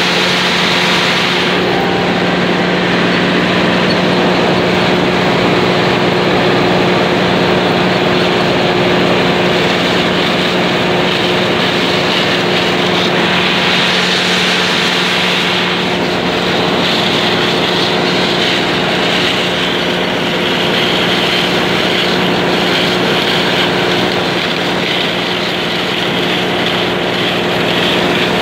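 Claas Dominator 108 combine harvester with a six-row maize header running steadily, its engine and machinery giving a constant low hum.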